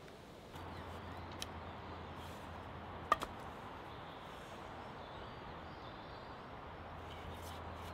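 Quiet woodland ambience: a steady hiss with a low hum underneath, and one sharp click about three seconds in.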